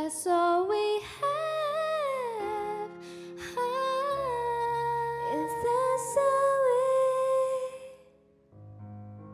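Female voices singing a wordless, hummed melody in long held and gliding notes over sustained keyboard chords. The voice stops about eight seconds in, leaving a soft keyboard chord ringing.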